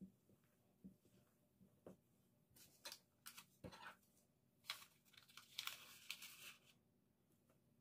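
Soft knocks of a silicone spatula against a stainless steel mixing bowl of batter. From about five seconds in comes the louder crinkling and tearing of a paper sachet of baking powder being opened.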